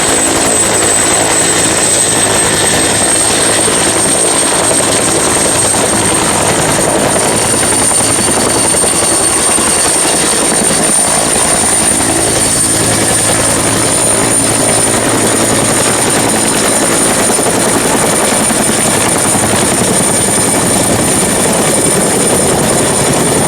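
Helicopter sound: a steady, loud rotor and engine noise with a high whine that rises slightly at first and then holds.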